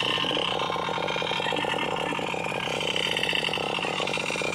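Small engine running steadily, with a fast, even firing beat.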